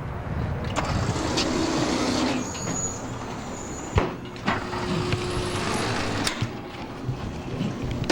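Outdoor traffic noise from passing vehicles, with several sharp knocks and a brief high squeal about two and a half seconds in.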